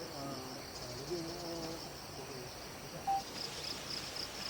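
Insects chirping in a steady pulsing trill, with faint, distant voices talking in the first half.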